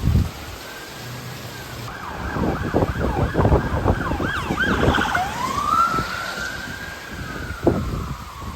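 Emergency vehicle siren wailing, its pitch slowly rising and falling, under loud gusts of hurricane wind and rain buffeting the microphone for the first half.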